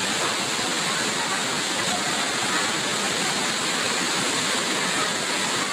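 Steady rush of water pouring over a waterfall in flood, an even, unbroken noise.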